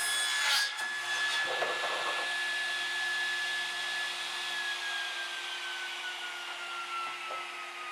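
Table saw ripping Baltic birch plywood: the cut ends within the first second, the blade runs free with a steady whine, and from about halfway the pitch falls slowly as the saw spins down after being switched off.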